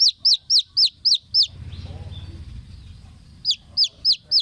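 A baby poultry chick peeping: loud, sharply falling peeps about four a second, in two runs. Between the runs is a pause of about two seconds filled by a low rumble.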